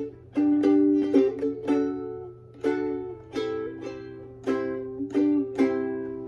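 Koaloha Opio soprano ukulele strummed through a short chord progression, about a dozen strums, the final chord left ringing and fading away.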